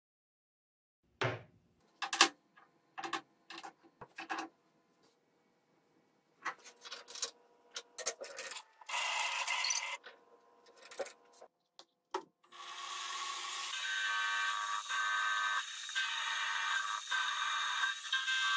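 Metal parts knocked and clinked in a series of short separate sounds as they are handled and clamped in a machine vise. About twelve seconds in, a milling machine starts and runs steadily, its end mill cutting into a metal workpiece with a continuous whine of several steady tones.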